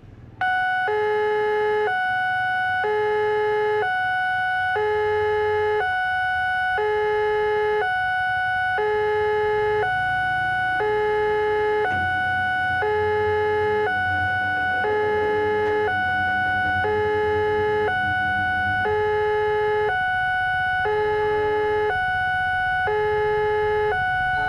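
Railway level-crossing warning alarm sounding: an electronic two-tone siren alternating between a low and a high note, each held about half a second. It starts abruptly about half a second in and keeps going steadily, warning that a train is approaching the crossing.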